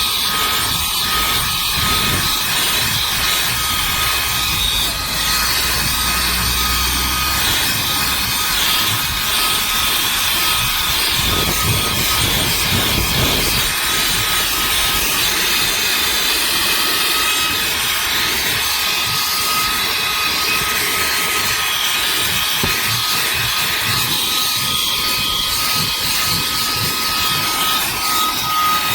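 EBOSSOM cordless handheld vacuum cleaner running steadily: a loud rush of air with a steady high motor whine.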